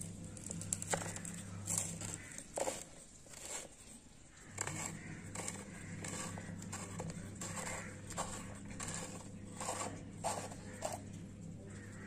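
Scraping and short clicks of plastic on plastic as a hand works a valve insert with a rubber O-ring out of the end of a white PVC water-pump injector valve. A low steady hum runs behind it and drops out for a couple of seconds about two seconds in.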